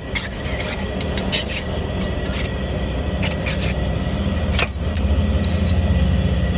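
Steady rumble of street traffic with many quick, irregular sharp clicks and clinks over it.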